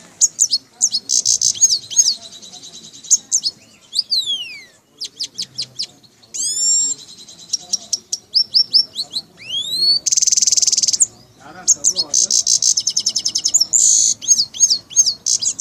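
Grey-headed goldfinch singing a long, varied song of rapid high twittering, buzzy trills and long whistles that sweep down and up in pitch. The song of this mimic bird mixes in copied sounds such as myna and sparrow calls and human whistling.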